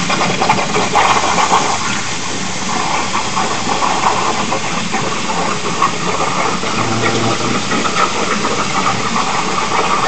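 CNC plasma cutter torch arc striking suddenly, then cutting with a steady loud hiss.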